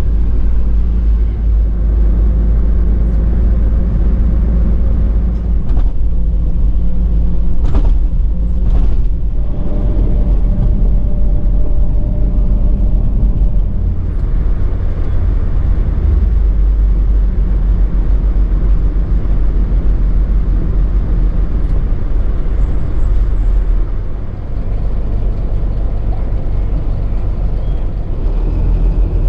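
Mercedes-Benz Atego expedition truck's diesel engine and road noise heard from inside the cab while driving: a steady low rumble, with a few light knocks or rattles a third of the way in.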